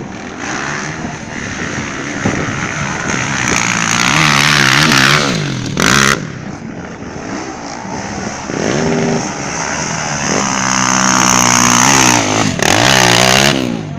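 Dirt bike engines on a trail ride, revving up and dropping back repeatedly as the bikes pull and shift gear. A short, loud burst of noise cuts in about six seconds in.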